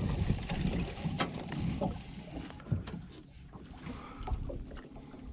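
Water lapping against the hull of a small fishing boat, over a low rumble, with a sharp click about a second in.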